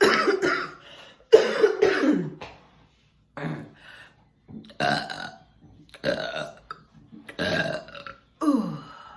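A woman burping about seven times in a row, each burp short with a gap of roughly a second between them, several of them sliding down in pitch as they end.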